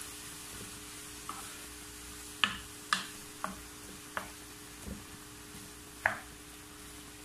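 Wooden spatula stirring chopped ash gourd and coconut in a nonstick frying pan, with about seven knocks of the spatula against the pan, the loudest a little over two seconds in, just before three seconds and near six seconds, over a faint sizzle of the moist food cooking. A steady low hum runs underneath.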